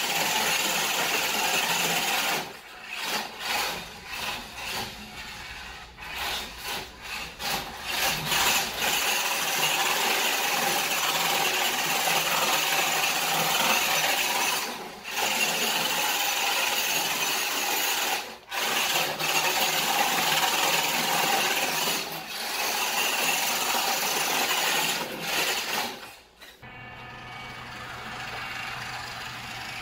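WPL D12 RC kei truck's small electric motor and gears whining under throttle as its tyres scrub and slide on a hardwood floor while drifting, dropping out briefly several times as the throttle is let off. Near the end it gives way to a quieter, steadier run over a low hum.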